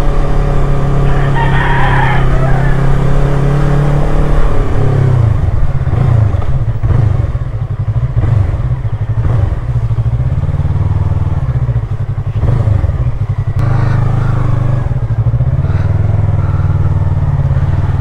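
Motorcycle engine running as it rides, the note steady for the first few seconds and then uneven from about five seconds in. A rooster crows briefly about two seconds in.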